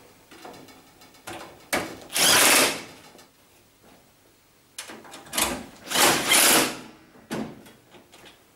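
Cordless drill-driver running in short bursts, driving the bolts into the tumble dryer's top support bracket. There are two main runs, about 2 seconds in and about 5 to 6.5 seconds in, with brief spins and clicks around them.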